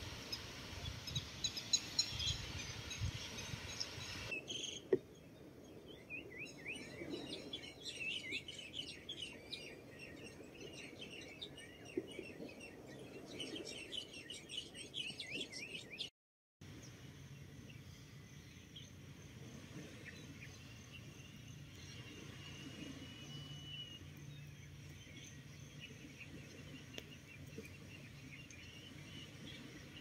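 Many small birds chirping in quick, overlapping calls. The sound changes abruptly about four seconds in and again with a brief dropout about halfway, and in the later part a thin, steady high tone comes and goes.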